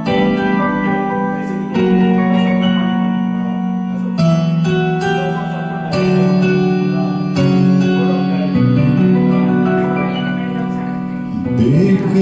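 Instrumental introduction of a karaoke backing track: sustained keyboard or piano chords that change every second or two. A voice starts to come in near the end.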